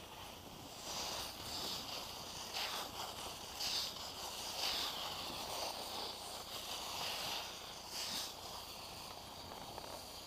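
Hiss of edges scraping over groomed snow, rising and falling in uneven swells every second or so.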